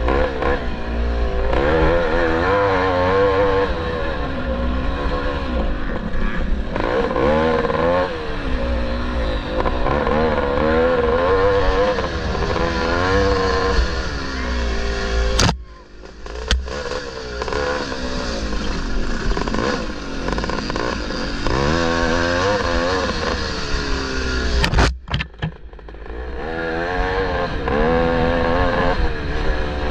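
1974 Maico 440's two-stroke single-cylinder engine being ridden hard on a motocross track, its pitch rising and falling with the throttle. Twice, about halfway and again about five seconds before the end, the engine note drops away briefly, with a sharp knock each time.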